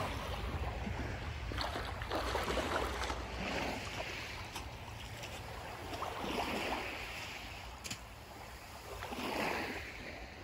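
Small lake waves lapping on a pebble shore, a soft wash coming in every few seconds. Under it runs a low wind rumble on the microphone.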